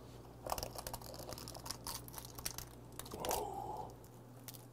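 Steamed king crab shell being broken and pulled apart by hand: a scattered series of small cracks, snaps and tearing sounds.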